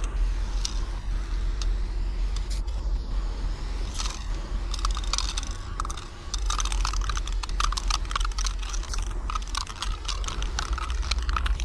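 Aerosol spray paint can spraying onto a brick wall in repeated passes, a hiss broken up by many small rapid clicks, busier from about halfway through, over a steady low rumble.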